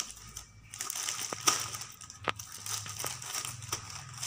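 Thin plastic bag crinkling and rustling as cotton wool is pulled out of it, with a few sharp clicks among the irregular crackle.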